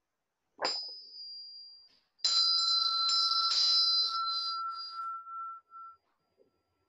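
A small meditation bell struck twice, the second strike louder, each ringing on in clear high tones and slowly fading; it marks the end of a period of silent meditation.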